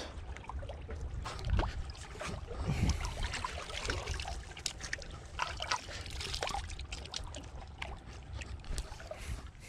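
Water lapping and trickling, with scattered short clicks and knocks throughout.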